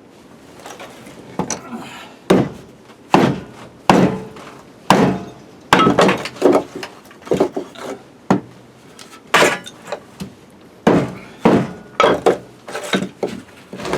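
An axe striking and splitting firewood: a run of sharp, irregular knocks, roughly one a second.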